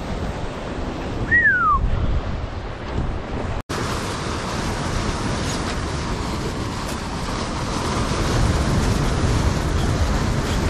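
Ocean surf breaking and washing over the boulders of a rock wall: a steady, rushing noise. A single short falling whistle sounds about a second and a half in, and the sound cuts out for an instant a little over three seconds in.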